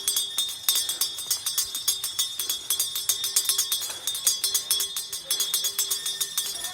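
Hand-held bells rung rapidly and without pause: a fast jangling clang of several strikes a second over a steady high ring.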